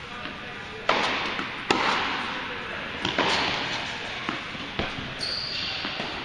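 Tennis rally: a ball struck by rackets and bouncing on a hard court. There are two sharp hits about a second in, then several lighter hits and bounces, each ringing on in the large hall.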